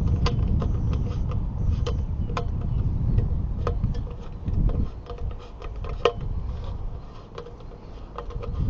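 Wind buffeting the microphone as a low, uneven rumble that eases near the end, with scattered sharp clicks and clinks from pole-mounting hardware being handled.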